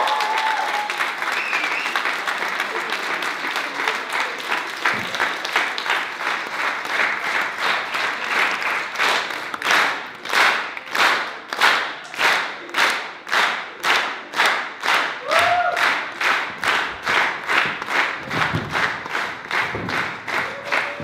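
Audience applauding. Scattered applause turns into rhythmic clapping in unison, at about two claps a second, after some eight seconds.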